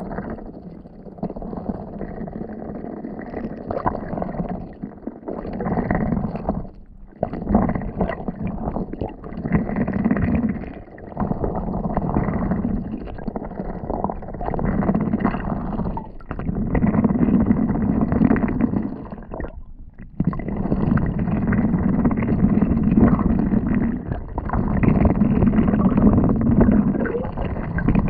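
Muffled water sounds picked up underwater through a GoPro housing as ducks dabble and paddle over the riverbed: sloshing and gurgling that swells and drops, growing louder in the second half.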